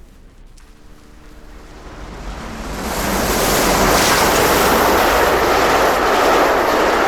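Passing train: its noise swells over about two seconds into a loud, steady rushing as it comes close.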